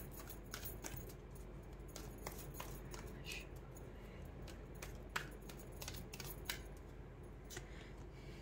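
Faint, scattered light clicks and taps of tarot and oracle cards being handled and laid out, over a low steady hum.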